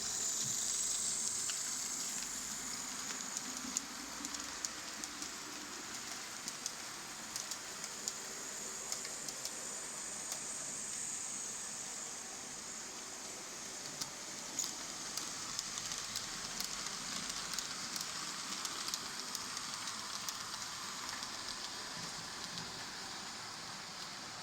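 H0-scale model train running along the layout track: a steady high hiss and whir from the small locomotive motor and wheels, with many light clicks from wheels passing rail joints, fading slowly toward the end.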